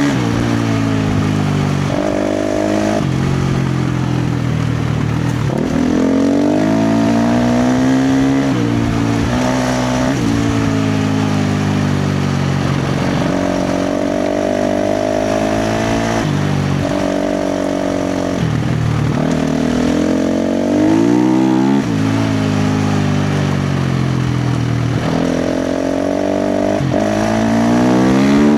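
KTM 350 XC-F dirt bike's single-cylinder four-stroke engine revving hard under load off-road, its pitch climbing and falling over and over as the throttle is opened and chopped.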